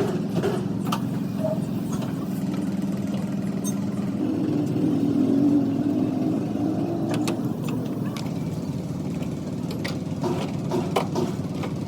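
An engine running steadily, its pitch stepping up a little about four seconds in, with scattered light clicks.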